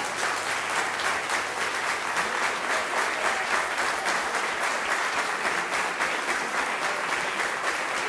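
Audience and orchestra members applauding: dense, steady clapping.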